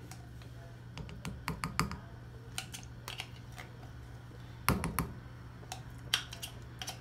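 A spoon clicking and tapping against the pan as thick tomato paste is scooped into the sauce: scattered light clicks, the loudest cluster about five seconds in, over a steady low hum.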